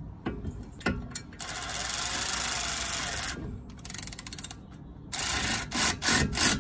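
A few knocks at the start, then a Milwaukee cordless ratchet runs a small brake-disc retaining bolt into the hub. It runs for about two seconds, then in shorter bursts as the bolt seats.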